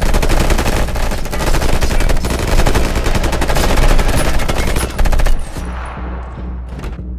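Sustained automatic rifle fire from several guns at once, rounds striking an armored SUV. The shooting stops about five and a half seconds in, leaving a low rumble.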